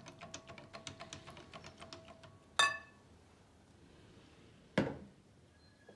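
A silicone whisk beating yogurt and water in a glass bowl, a quick run of light ticks for about two and a half seconds. Then a single sharp clink that rings on as the whisk is knocked against the glass bowl and left in it, and a dull thump about two seconds later.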